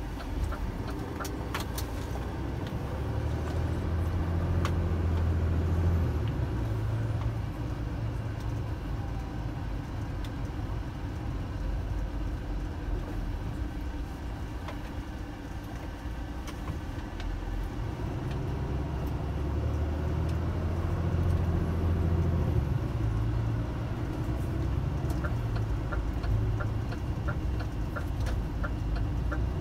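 Diesel engine of a refuse truck heard from inside the cab while driving, its low rumble swelling twice as it accelerates: a few seconds in and again after about 18 seconds. A light regular ticking comes near the start and again near the end.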